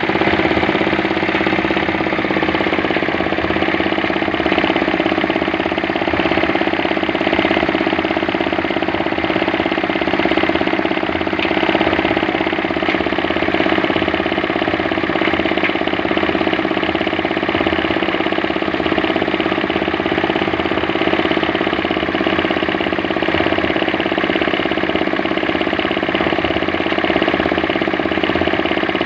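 Small 8 hp diesel engine running steadily, driving a cement mixer, with an even, unbroken engine note.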